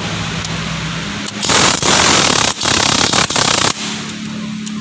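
Toyota Vios engine running with a steady low hum, broken in the middle by about two seconds of loud rushing noise before it settles back.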